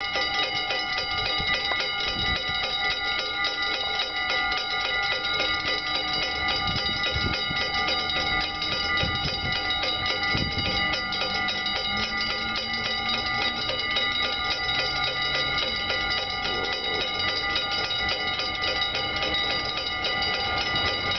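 Level crossing warning bell ringing rapidly and without a break, the signal that a train is approaching. A few low rumbles come and go beneath it.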